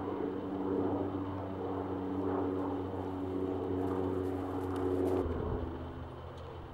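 A steady low mechanical hum with several held tones, like an engine or motor running. It shifts abruptly about five seconds in.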